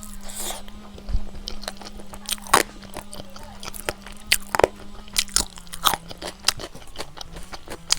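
Close-miked eating: a person chewing and biting food, with irregular crisp crunches and mouth clicks over a faint steady hum.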